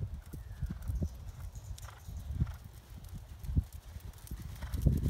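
Hoofbeats on a dirt arena as a horse lopes alongside a trotting bison: soft, irregular thuds.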